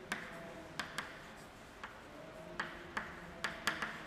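Chalk writing on a blackboard: a string of short, sharp ticks and taps at uneven spacing as the chalk strikes and drags across the board, coming closer together near the end.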